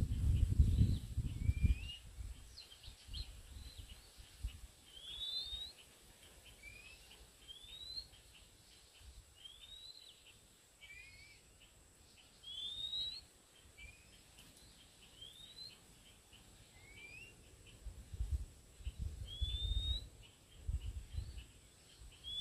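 Oriental magpie-robin singing short rising whistled notes, one every second or two, some higher and some lower. Low rumbling noise comes and goes at the start and again near the end.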